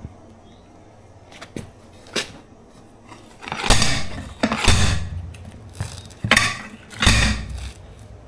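Heavy metal blows on an old manual bead-breaker tool, driving it down to break a trailer tire's bead off the rim: a few light knocks, then four loud strikes in two pairs over the second half. The bead lets go easily because the tire has soft sidewalls.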